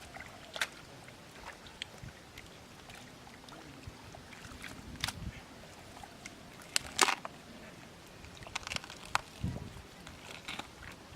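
Scattered sharp knocks and clicks over a steady outdoor background, the loudest pair about seven seconds in.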